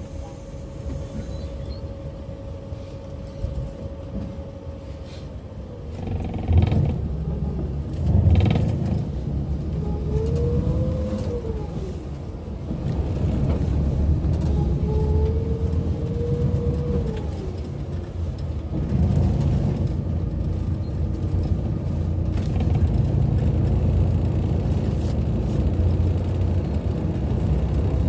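Seoul city bus under way, heard from inside the cabin: a steady low engine and road rumble with creaks, two thumps about six and eight seconds in, and a whine that rises and falls twice as the bus speeds up and slows.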